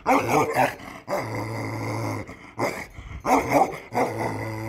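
Bakarwal dog barking and growling: a few sharp barks, then a long growl about a second in, more barks around three seconds in, and another long growl near the end.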